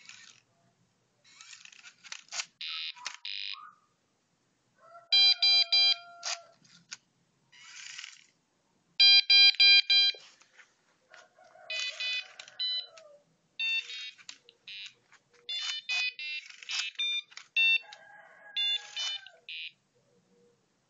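The robot's Arduino-driven buzzer plays runs of short electronic beeps at several pitches. Between the beeps come bursts of whirring and clicking from its small geared motors moving the wheels, tail and claws.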